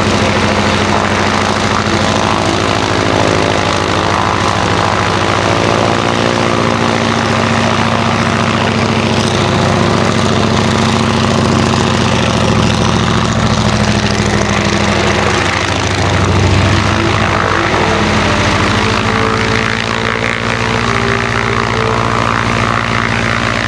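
PT-17 Stearman's Continental seven-cylinder radial engine and propeller running at nearly full throttle, holding the tail off the ground while the biplane pivots on its main wheels. The level dips slightly about twenty seconds in.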